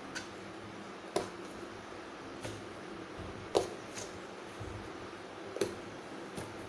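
Steel fork pricking holes in whole raw eggplants on a plastic cutting board: a handful of short, scattered soft clicks and taps as the tines pierce the skin and knock the board, the loudest about three and a half seconds in.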